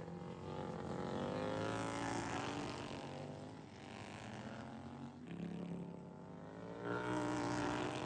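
Racing lawnmower engines running on track as mowers go past, the pitch rising and falling with each pass. The sound swells twice, about two seconds in and again near the end.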